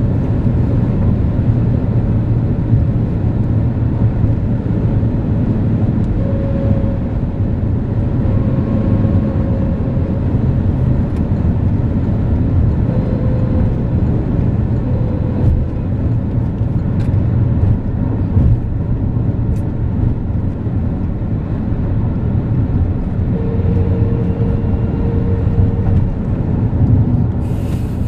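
Cabin noise of a Renault Laguna III GT 180 (2.0 dCi diesel) cruising on the motorway: a steady low rumble of engine, tyres and wind. There is a short click near the end.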